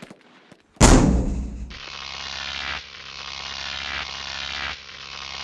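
Intro sound effects: a single loud gunshot-like bang about a second in, then a steady mechanical rattle over a low hum that runs in three stretches of one to two seconds each.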